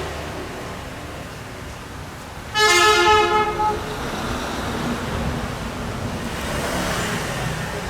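A vehicle horn gives one honk of about a second, a little over two and a half seconds in, over a steady rumble of vehicle noise.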